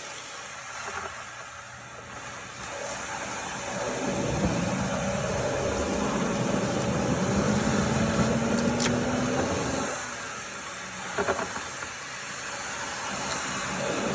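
Dryer vent cleaning equipment running with a steady rush of air. A motor's pitch climbs steadily for several seconds and then drops off, a few knocks follow, and the rushing builds again near the end.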